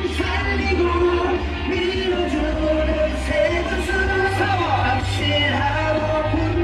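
Loud pop music with singing over a heavy bass beat and regular cymbal hits, plausibly the candidate's campaign song played over the rally's sound system.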